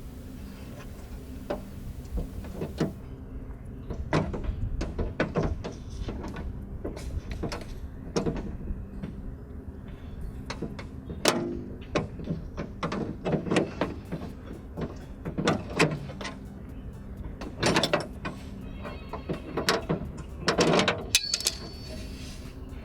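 Irregular metallic clicks, knocks and short scrapes of hand tools and door parts as the exterior door handle is worked loose and taken out of a Hyundai Santro's door.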